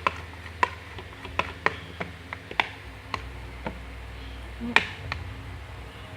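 A stirrer clicking and tapping irregularly against the side of a container while stirring a clear glue and water mixture, with one louder knock a little before the five-second mark.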